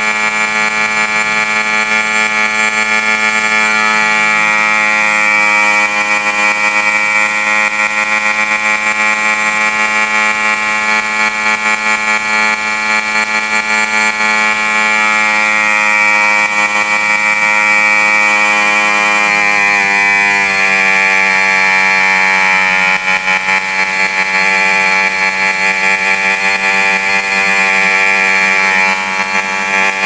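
Air compressor for a spray gun running with a steady buzzing hum, dipping slightly in pitch about twenty seconds in.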